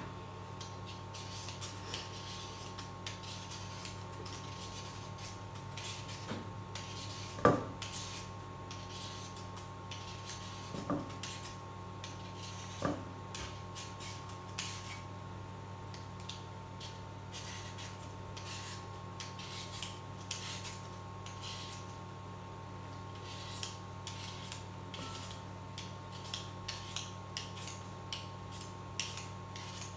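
Raw potatoes being peeled with a hand vegetable peeler: repeated short scraping strokes as strips of peel come off over a stainless steel bowl. A few knocks stand out, the loudest about seven seconds in.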